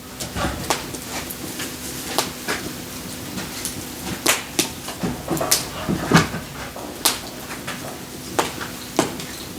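Split firewood logs knocking and clattering against each other as they are handled and stacked: a string of irregular sharp knocks, a few every second.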